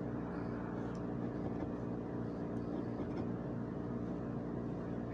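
A steady low mechanical hum with several tones held evenly throughout, the background drone of a running machine.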